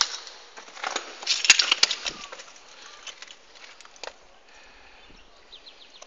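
Footsteps crunching over broken debris and grit on a concrete floor, with a few loud crunches in the first two seconds and softer steps after.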